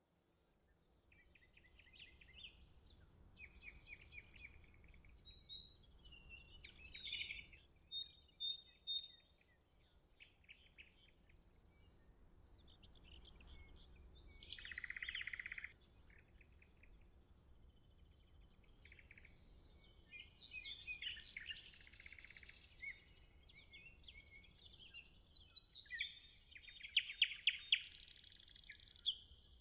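Several songbirds chirping and trilling, calls overlapping, with a buzzy trill lasting about a second midway and busier calling near the end.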